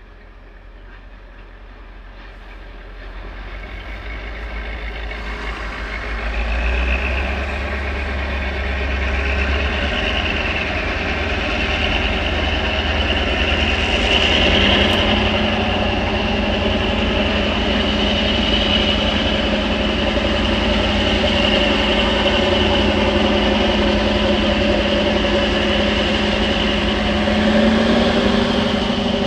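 GM-EMD diesel locomotive hauling a heavy freight train, its engine running under load in a steady drone. It grows louder over the first several seconds, then holds steady, with the engine note stepping up slightly twice.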